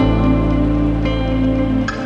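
Outro background music: held chords over a steady bass note, with no speech.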